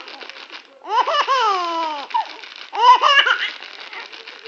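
Baby girl laughing loudly in two bursts, the first sliding down in pitch, set off by the crinkling of a plastic potato-chip bag that fills the gaps between the laughs.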